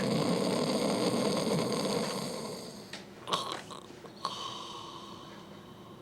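A person snoring: one long snore that fades out over the first two seconds or so, followed by two short sharp sounds about a second apart.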